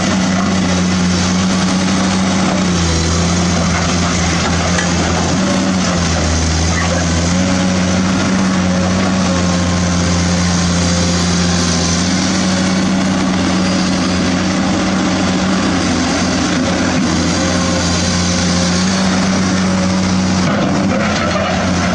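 Electric motors of a radio-controlled toy excavator running steadily as it digs and swings its arm, a loud hum whose pitch shifts between two levels every few seconds as different movements engage.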